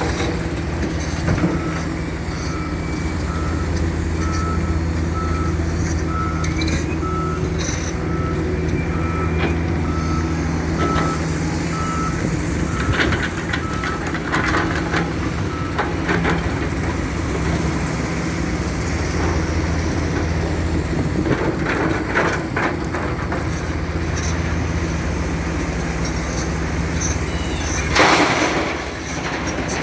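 Wheel loader's diesel engine running steadily, with its reversing alarm beeping evenly at one pitch from early on until about halfway through. Clattering of stones comes and goes, and a brief loud rush sounds near the end.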